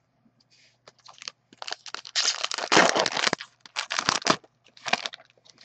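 A trading card pack's wrapper being torn open and crinkled in the hands: a run of crackling, crumpling rustles, densest and loudest for about a second midway.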